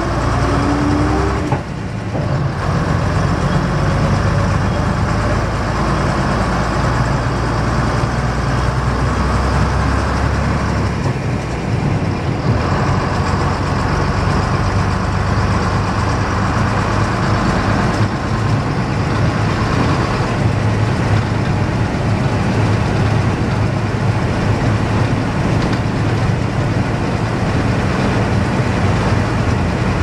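AEC 9.6-litre six-cylinder diesel engine of an RT double-decker bus running steadily under way, heard from on board the bus. The engine note dips briefly about a second and a half in and shifts again around eleven seconds in.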